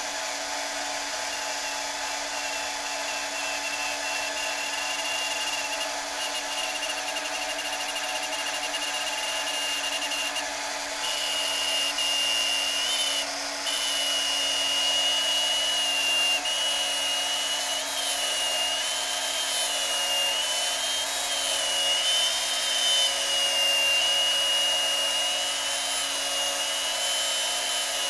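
Cheap Harbor Freight electric drill running steadily while boring a hole into a plastic cue-ball shifter knob, with a high whine that wavers in pitch from about a third of the way in and two brief dips.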